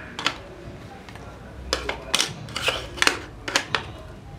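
Plastic puzzle chips of a Hide and Seek Safari logic game being fitted onto the plastic game board: a series of light plastic clicks and clacks, most of them in the second half.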